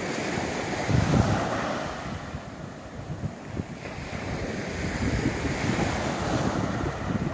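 Sea waves washing onto the shore, swelling about a second in and building again from about four seconds in, with wind buffeting the phone's microphone.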